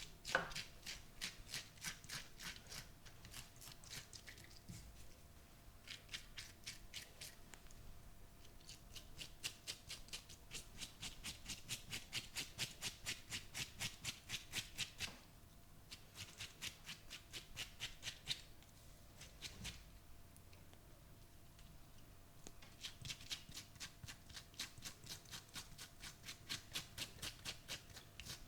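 Crisp, rapid clicking from a barber's hands working on the head during a massage, about five clicks a second in runs of a few seconds with short pauses, and one louder crack right at the start.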